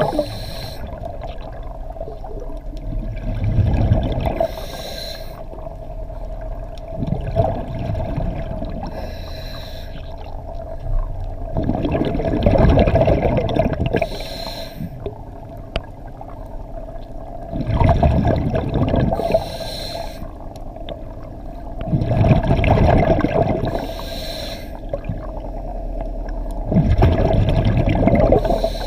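An underwater diver breathing through a regulator in a slow, even cycle about every five seconds: a short hiss of inhalation, then a rush of exhaled bubbles. A steady hum runs under the breathing.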